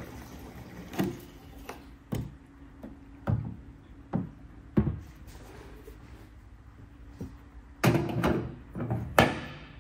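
Fuel pouring from a plastic jerry can into a race car's hood-mounted fuel filler, with about five dull knocks as the can bumps the filler neck and bodywork. Near the end comes a louder burst of clanks and rattles as the filler is handled and closed up.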